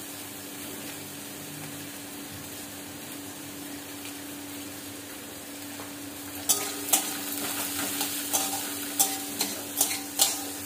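Onion and tomato frying in oil in an aluminium kadai with a steady sizzle, over a faint steady hum. From about six seconds in, a metal spatula scrapes and knocks against the pan as the mixture is stirred, in a run of sharp clicks.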